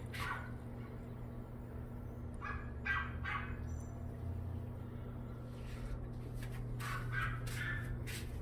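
Short harsh animal calls from outdoors, coming in three brief series about a third of a second in, around the middle and near the end, over a steady low hum.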